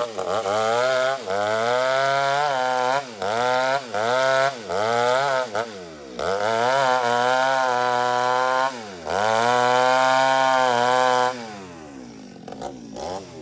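Two-stroke chainsaw ripping lengthwise through an old teak log. The engine pitch dips and climbs back again over and over, holds high and steady for two longer stretches, then drops to a quieter idle about eleven seconds in.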